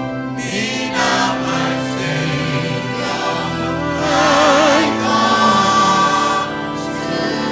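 A church choir and congregation singing a hymn over sustained accompaniment, with one voice's strong vibrato standing out about four seconds in.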